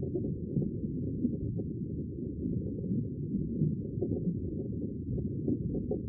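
Muffled underwater ocean ambience: a steady deep rumble and wash that swells slightly and falls back, with nothing above a low pitch.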